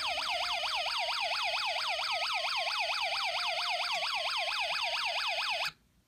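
Snap Circuits Junior light police siren circuit sounding through its small speaker: an electronic police siren of fast rising sweeps, about four to five a second, from the alarm IC, with a simple electronic tune from the music IC playing at the same time. It cuts off suddenly near the end.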